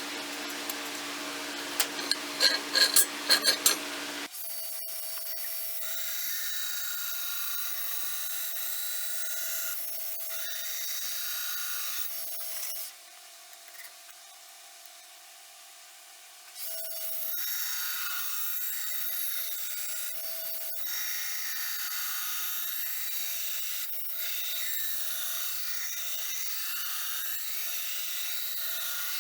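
A few sharp metallic clinks, then a belt grinder running steadily against a steel sword blade, grinding in the fullers, with a short quieter spell midway before the grinding resumes.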